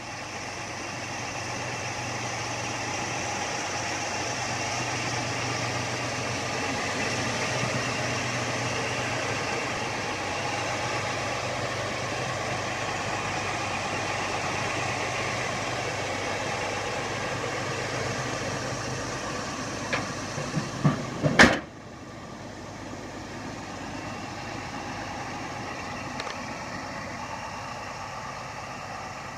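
Small-block Chevy V8 in a 1951 Chevy 3100 pickup idling steadily. About twenty seconds in come a few sharp knocks and a loud bang as the hood is shut, after which the idle sounds quieter and more muffled.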